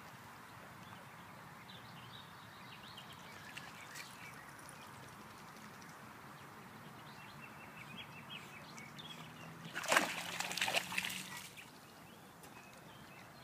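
Water splashing loudly for about a second and a half, about ten seconds in, from a Cardigan Welsh Corgi swimming in a lake. Faint bird chirps sit over a steady outdoor background.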